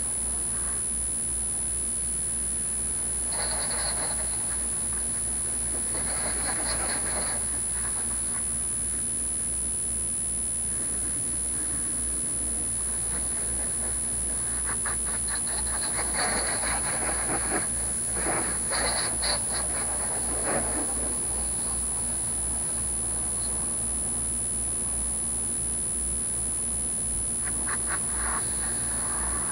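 Garden hose spraying water onto a car's bodywork, a hiss and splatter that comes in several bursts, longest about halfway through, over a steady low rumble.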